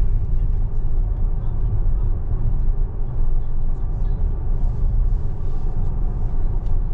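Steady low road and tyre rumble inside the cabin of a moving Tesla electric car, with no engine note.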